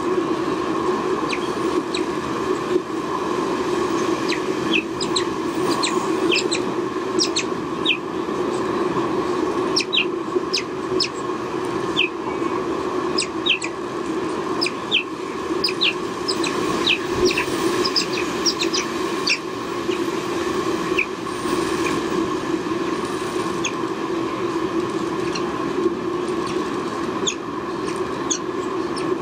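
Many short, high, downward-slurred bird chirps, some in quick runs, over a steady low hum.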